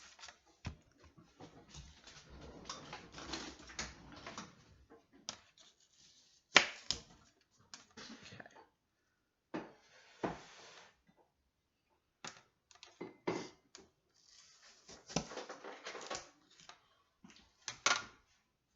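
Knife slicing an apple slice and tapping on the cutting surface, with irregular sharp clicks, knocks and short scrapes. The loudest knock comes about six and a half seconds in.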